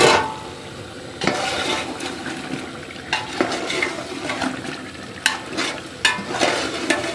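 A metal spoon stirring chicken masala in a large metal cooking pot, knocking and scraping against the pot several times over a steady sizzle of the chicken cooking in its oil and masala.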